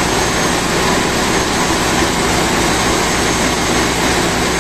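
Steady, loud machinery din of a ship's engine room with diesel machinery running.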